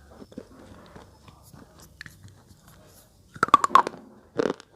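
Slate pencil being bitten and crunched in the mouth. Faint chewing at first, then a quick run of sharp crunches about three and a half seconds in, and another loud crunch near the end.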